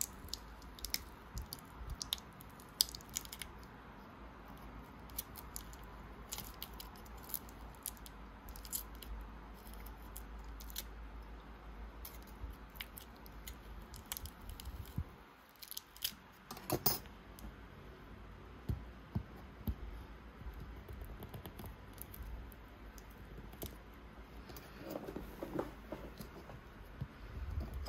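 Small tools and fingers working on the opened iPhone X: scattered light clicks, taps and scrapes of metal and plastic on the phone's parts, over a low steady hum.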